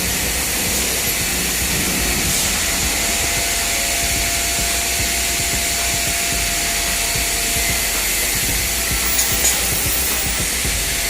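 Steady hiss with a low rumble underneath and a faint steady whine through the middle stretch: continuous machinery noise in a welding shop.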